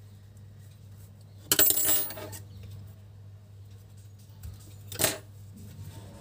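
A metal clatter of small tools on a table: a loud rattle with ringing about a second and a half in, as the scissors are handled, then a single sharp click about five seconds in. A steady low hum runs underneath.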